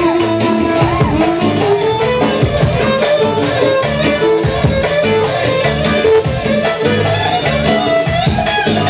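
Instrumental music with a steady beat and a wavering lead melody.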